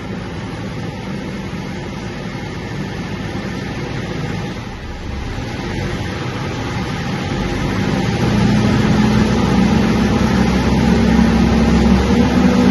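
Mitsubishi L200 Triton 3.2 four-cylinder turbodiesel running, with the knocking of a worn, slack timing chain. The engine gets louder about eight seconds in.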